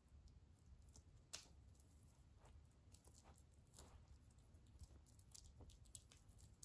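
Near silence: faint scattered rustles and light clicks of a kitten wrestling a wand toy on carpet, with one sharper click about a second and a half in, over a low room hum.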